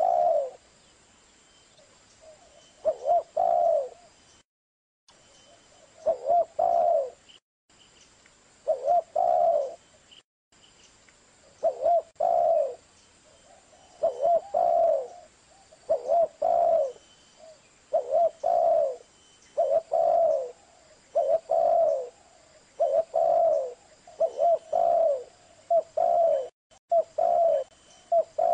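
Spotted dove cooing: a short phrase of two or three coos repeated over and over. The phrases come about every three seconds at first, then closer together, about every second and a half.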